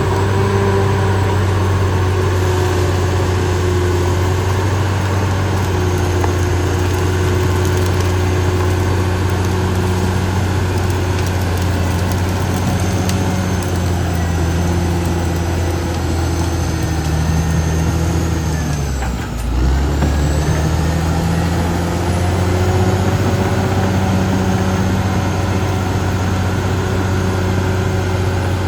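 Caterpillar D6R XL bulldozer's diesel engine running steadily. About two-thirds of the way through, the engine speed dips briefly and then picks back up.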